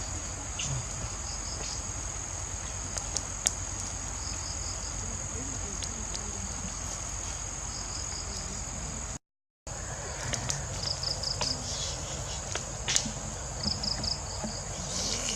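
Forest insects shrilling steadily, with cricket-like chirps in groups of three or four repeating every couple of seconds and scattered sharp clicks. The sound cuts out briefly about nine seconds in.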